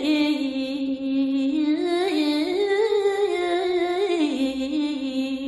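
A single voice singing a Balinese geguritan verse unaccompanied, drawing out long notes with slow, ornamented glides, dropping to a lower held note about four seconds in.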